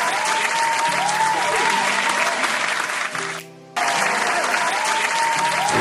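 Applause over background music, breaking off briefly about three and a half seconds in.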